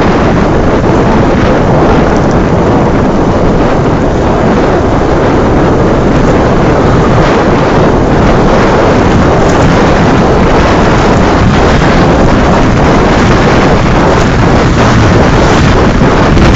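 Heavy wind buffeting the microphone on a moving TVS Apache motorcycle at road speed. It is a loud, steady rush that drowns out any clear engine note.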